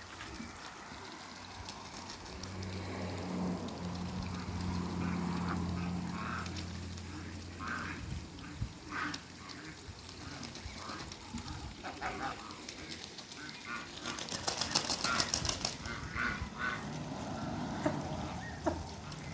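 Ducks giving short, scattered calls, with a rapid run of wing flapping about two-thirds of the way in and a low steady hum underneath in the first half.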